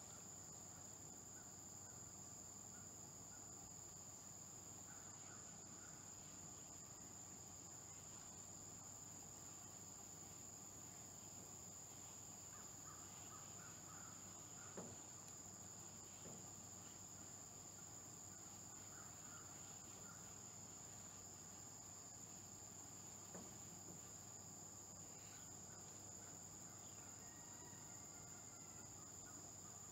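Steady, high-pitched chorus of insects chirring without a break, at a low level. A few faint knocks stand out about halfway through.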